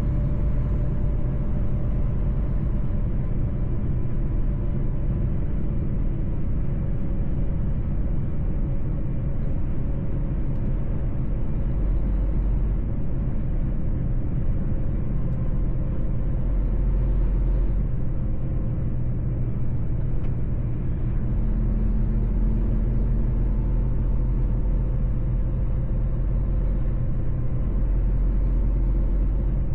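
Mercedes-Benz truck driving at a steady pace: a deep, even engine and road rumble with a faint steady drone above it.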